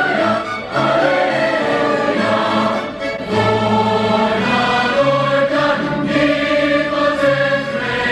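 Large choir singing a holiday carol in sustained chords with orchestral accompaniment.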